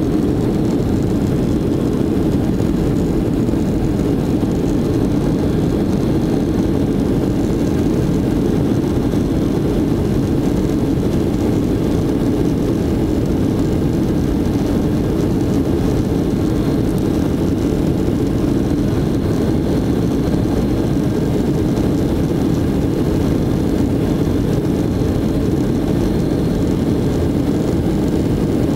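Steady jet-engine and airframe rumble heard inside the cabin of a Boeing 757 rolling along the ground, deep and unchanging throughout.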